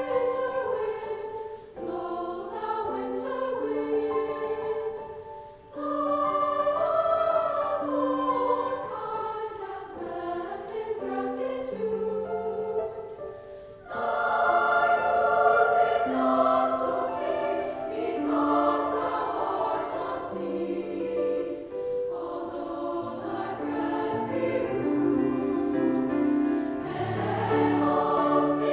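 Children's choir singing a choral piece in several parts, in phrases with short breaks about six and fourteen seconds in.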